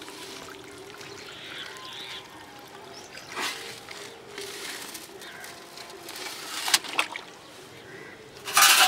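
Wet squelching and handling noise of raw whole chickens being moved about in a metal bowl, in scattered short bursts, with a loud brief noise just before the end.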